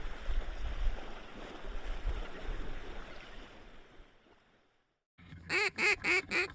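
A noisy rushing sound that fades out over about four seconds, then after a brief silence a rapid string of loud duck quacks, about four a second, starting about five seconds in.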